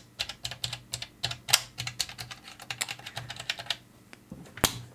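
Fingers clicking and tapping on the front-panel buttons of a ddrum4 SE drum module: a quick, irregular run of about twenty sharp clicks, then a pause and a single louder click near the end.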